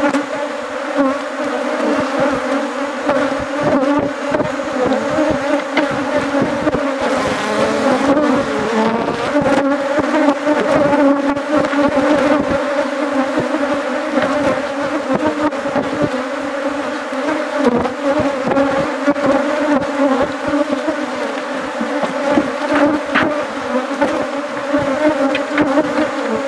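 Many honeybees buzzing around an opened hive: a loud, dense, steady hum.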